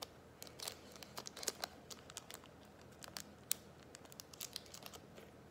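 Small foil seasoning packet from instant chicken ramen crinkling with irregular crackles as it is handled and torn open by hand.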